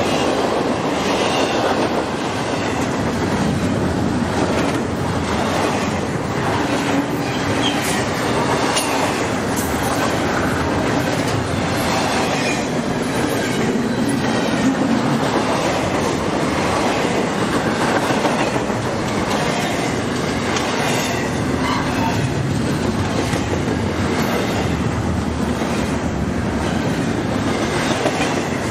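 Union Pacific freight train's cars rolling past steadily, wheels clicking over the rail joints, with a few brief squeals from the wheels.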